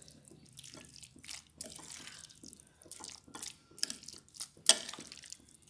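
A steel spoon stirring diced potatoes into a wet boiled-chickpea mixture in a glass bowl: soft wet squishing with irregular clinks and taps of the spoon against the glass, the sharpest about three-quarters of the way through.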